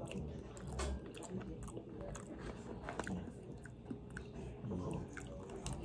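A person chewing a mouthful of pasta close to the microphone: soft, wet mouth sounds with many small scattered clicks.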